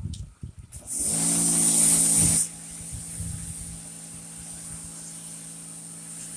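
Pressure washer spraying: a loud hiss of water over the machine's steady hum for about a second and a half, then the spray stops about two and a half seconds in and the machine keeps humming more quietly.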